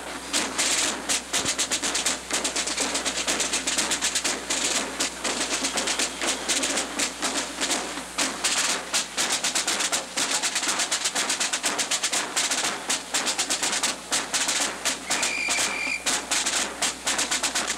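Rapid, irregular percussive banging and clattering, with a brief high whistle-like tone about three seconds before the end.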